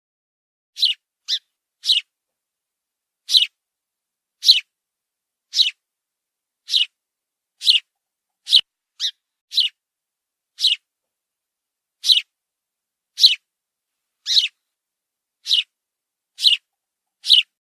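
Sparrow chirping: single short, high chirps, about one a second at uneven spacing, with complete silence between them.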